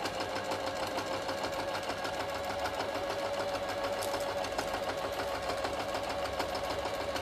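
Janome 523H sewing machine running steadily at speed, the needle stitching a rolled picot hem in a fast, even rhythm.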